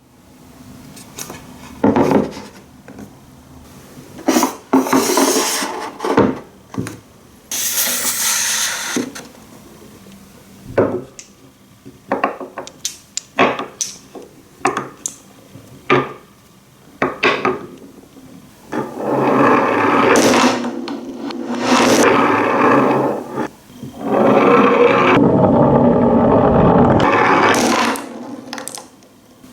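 A marble rolling through a wooden marble run, with many sharp clicks and knocks as it drops between wooden pieces, then longer stretches of loud rumbling as it rolls over the corrugated wooden plate in the last third.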